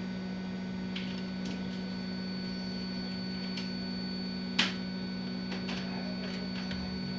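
Steady low electrical hum with a thin high whine over it, and a few light metallic clicks from a tool handled on a laptop motherboard, the sharpest about halfway through.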